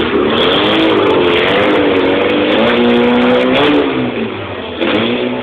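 Fiat 500's engine revving hard, its pitch rising and falling again and again. It eases off about four seconds in and picks up again near the end.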